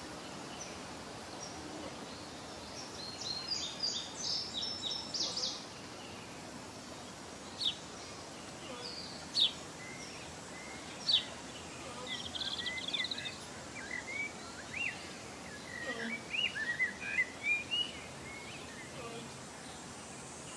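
Songbirds calling and singing over steady outdoor background noise: a quick cluster of chirps a few seconds in, then a few sharp single notes, a short trill and a run of quick rising chirps near the end.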